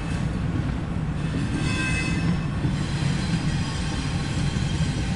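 Double-stack intermodal freight train's cars rolling steadily past, a continuous low rumble of wheels on rail heard through the car's closed windshield, with a brief faint high squeal about two seconds in.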